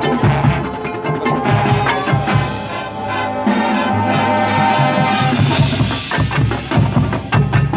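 Marching band playing: brass holding chords over drums and struck mallet percussion, with the chord shifting lower about halfway through.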